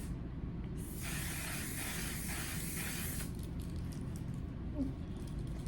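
Makeup spray misted onto the face: one continuous hiss lasting about two and a half seconds, starting just under a second in.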